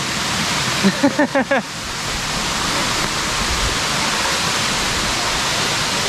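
Waterfall rushing, a steady loud roar of falling water. A person's voice calls out briefly about a second in.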